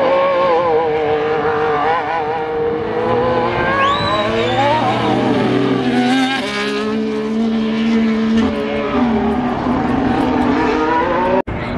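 Ferrari SF-23 Formula 1 car's 1.6-litre turbocharged V6 running hard on track, its note rising and falling as it works through the gears. The sound cuts out abruptly for a moment near the end.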